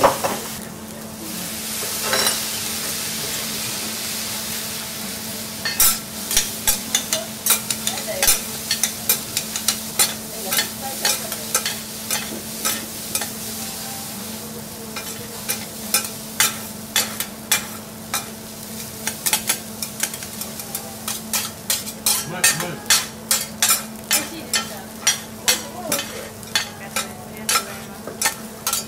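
Fried rice sizzling on a teppanyaki steel griddle, then from about six seconds in two metal spatulas chopping and scraping through the rice, clacking on the griddle two to three times a second.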